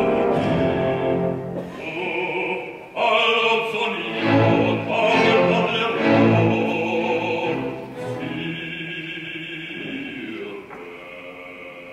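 Operatic bass voice singing with orchestra. The voice comes in strongly about three seconds in, and the music grows softer after about eight seconds.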